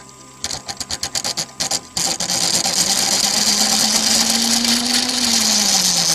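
Texturing tool pressed against a small wooden top spinning on a wood lathe. It makes a string of brief, rapid touches, then from about two seconds in a steady, loud, hissy buzz as the tool cuts its pattern into the wood.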